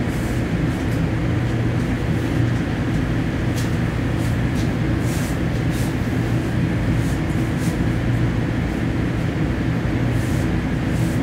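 Commuter train running along the line, heard from on board: a steady low rumble of the train in motion, with short higher clicks and hisses now and then.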